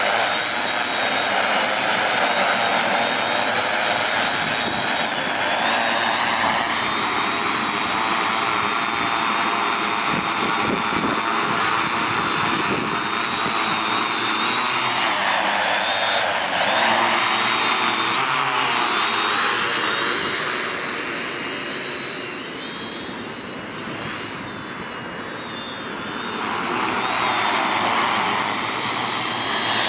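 Tarot T810 hexacopter's six 320 kV motors and 15-inch carbon propellers buzzing in flight over a steady high whine. The tone sweeps about halfway through as it passes close by. It grows fainter as it moves off about two-thirds of the way through, then comes back louder near the end.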